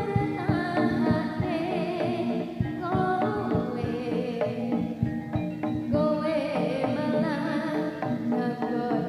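Live Javanese jaranan ensemble music over loudspeakers: drums beating a busy rhythm under steady held tones, with a voice singing a wavering melody.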